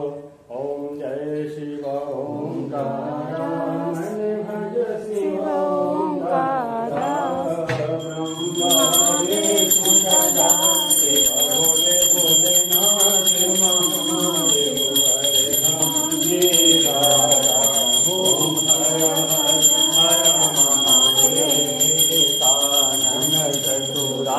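A man singing a Shiva devotional hymn in a slow, wavering melody. About a third of the way in a puja hand bell starts ringing rapidly and continuously under the singing.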